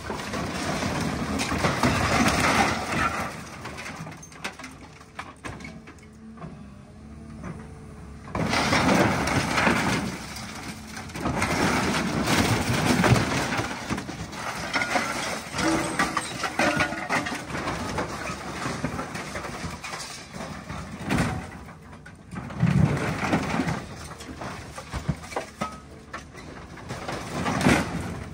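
Excavator bucket crushing the body of an old car: loud bursts of crunching, grinding sheet metal with sharp cracks. There is a quieter stretch about four to eight seconds in, where only the machine's engine is heard.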